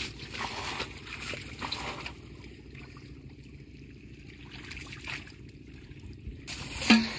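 Shallow muddy water trickling and sloshing as hands grope through it for fish, with a few small splashes in the first two seconds.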